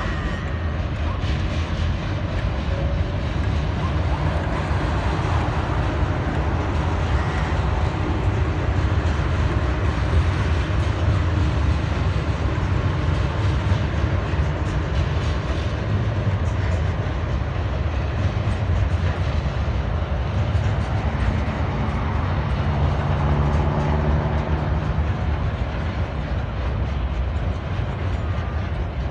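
A freight train hauled by two TasRail TR-class diesel locomotives passes close by, the locomotives' diesel engines running under load. The long rumble of container wagons rolling over the rails follows.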